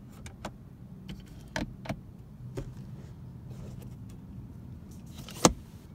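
Plastic clicks and knocks from a car's interior trim: the overhead dome-light switch being pressed and the sun visor being handled. About five and a half seconds in comes one sharp snap as the vanity mirror cover is flipped open.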